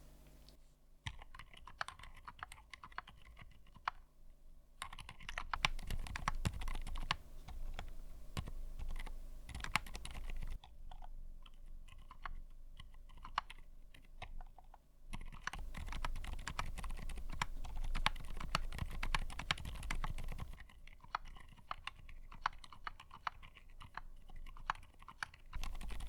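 Typing on a mechanical keyboard fitted with TTC silent switches: a dense, soft patter of keystrokes. It comes in stretches of a few seconds that alternate between busier, louder typing and sparser, quieter typing.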